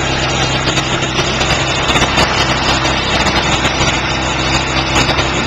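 ETQ TG1200 portable generator's small petrol engine running steadily, heard close up.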